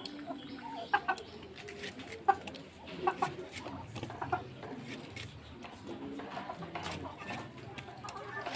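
A hen clucking in short calls about a second apart, with faint clicks and scrapes of a blade cutting a vegetable.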